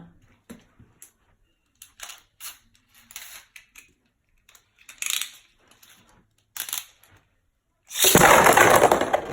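Scattered light plastic clicks and taps from Beyblade tops and launchers being handled. About eight seconds in comes a sudden loud rush of noise: Beyblades launched by ripcord into the plastic stadium, spinning and clashing.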